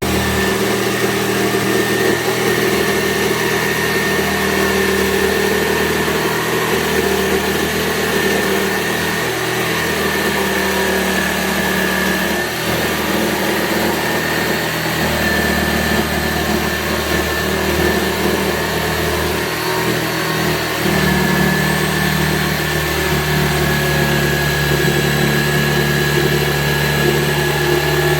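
Electric power tool motor running steadily with a high whine. Its lower tones shift about two-thirds of the way through.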